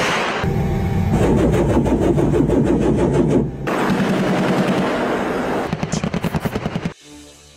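AH-64 Apache's 30 mm chain gun firing long, rapid bursts of about ten rounds a second, with a brief break a little before halfway. The firing stops near the end.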